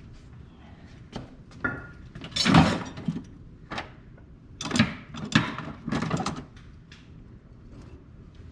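Clicks, knocks and short scraping rattles of metal brake parts and hand tools being handled during a rear brake job, with two louder stretches of scraping and clatter a couple of seconds in and again in the middle.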